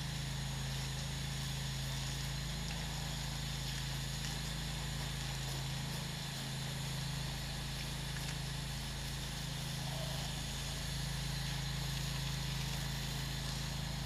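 Pressure washer running steadily with an even low hum while its wand sprays a rinse stream onto brick with a constant hiss.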